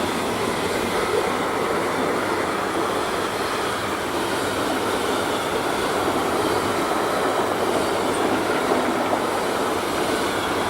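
A freight train rolling past, its wheels running on the rails in a steady, loud rumble.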